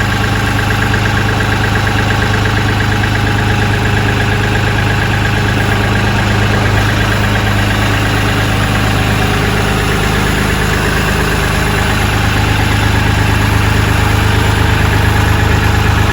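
Kioti CK3510SE compact tractor's three-cylinder diesel engine running at a steady idle, getting a little louder over the last few seconds.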